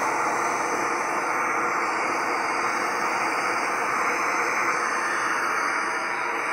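FireMaple X3 stove's gas burner running steadily just after ignition, a constant, even hiss under the pot as it starts heating half a litre of water.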